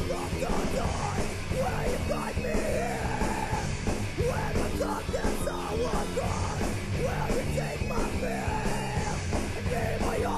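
Background music: a loud rock or metal track with shouted, yelled vocals over distorted guitars and drums.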